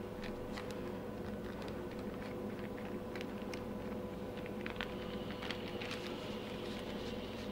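Faint crinkles and light ticks of parchment paper and soft handling as a filled dough sheet is rolled up by hand, over a steady background hum.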